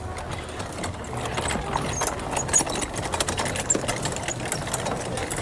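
Small go-kart engine running steadily while driving, with frequent clicks and rattles from the kart on a dirt and gravel path.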